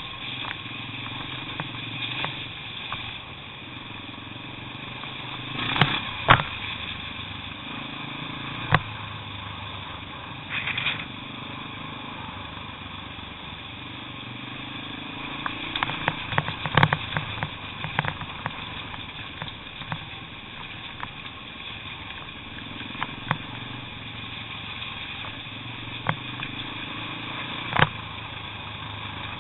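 Off-road trail motorcycle engine running at low revs while riding a rough, rutted lane, broken by a number of sharp knocks and clatters, with a burst of them about halfway through.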